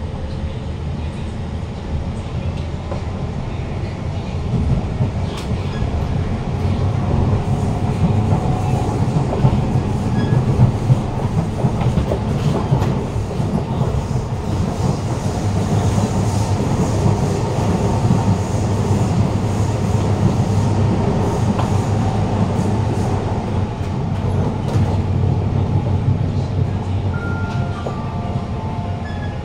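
Siemens C651 metro train running, heard from inside the carriage: a steady low rumble of wheels on rail with occasional clacks, louder through the middle. Near the end a whining motor tone steps down in pitch.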